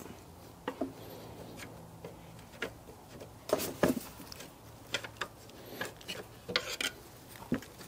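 Pry bar levering an alternator out of its mounting bracket: scattered light metal clicks, scrapes and knocks as it shifts.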